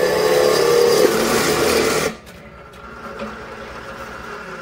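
Benchtop drill press running, its bit cutting through the thin sheet-metal bottom of a galvanized steel bucket. About two seconds in, the loud drilling stops and a quieter whir slowly fades away.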